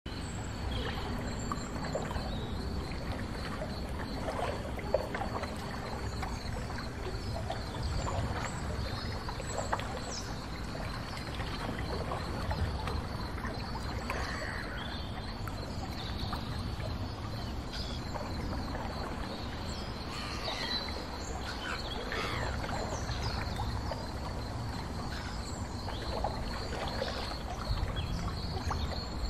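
Ambient sound of riding in a boat on a river: a steady low rumble with water and open-air noise, scattered bird chirps, and a faint steady high-pitched whine.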